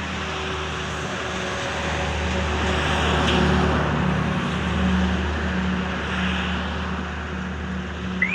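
Sea surf washing onto a beach, a steady rushing that swells and eases over a few seconds, over a low steady hum. Two short rising chirps near the end.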